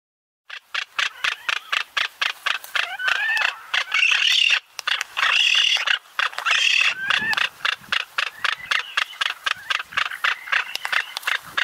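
Male frigatebird's courtship display, pouch inflated: a fast clattering rattle starting about half a second in, with warbling calls over it through the middle.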